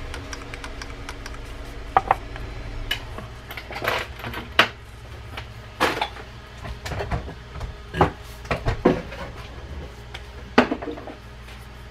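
Scattered light clicks and clinks of small metal fishing-reel parts and tools being handled and set down on a wooden workbench, about ten at uneven intervals, over a steady low hum.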